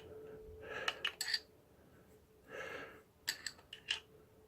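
Light metallic clicks and clinks of motorcycle clutch plates being handled and set down, a cluster about a second in and another after about three seconds, with a soft breath between them.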